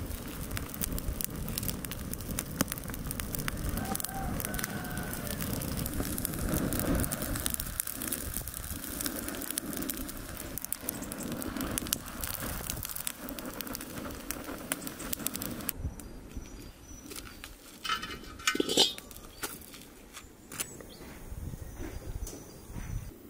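Wood campfire of branches crackling and popping over a low rush of flames. After about sixteen seconds the fire sound cuts off, leaving a quieter outdoor background with a brief, sharper sound a few seconds later.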